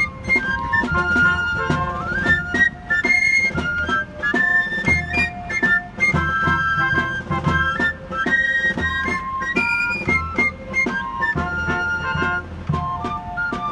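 Basque folk dance music from a txistu and drum: a high pipe plays a quick, lively melody of short notes over regular drum strokes.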